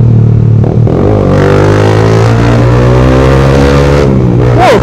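Honda CBR150R's single-cylinder engine breathing through a Daytona GP Taper aftermarket exhaust, heard from the rider's seat as the bike accelerates: the exhaust note climbs steadily for about three seconds, then drops, with a quick rise and fall near the end.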